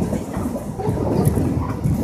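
Korail Line 1 resistance-controlled electric multiple unit, set 1x70, running on the track with a steady, dense rumble.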